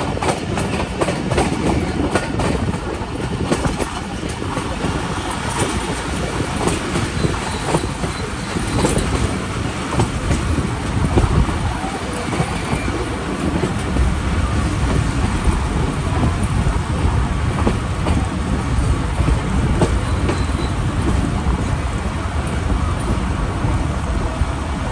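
Coaches of a passenger train running along the track, heard from a coach window: a steady rumble of wheels on rails with occasional clicks, most of them in the first few seconds.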